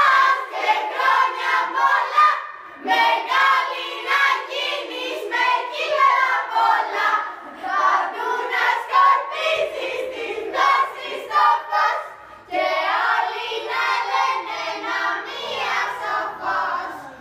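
A group of girls and women singing a birthday song together, with brief breaks about 3 and 12 seconds in.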